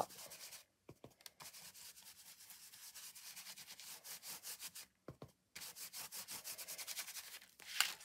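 Stencil brush scrubbing ink through a sticker stencil onto the paper in fast, faint rubbing strokes, with short breaks about a second in and around five seconds in.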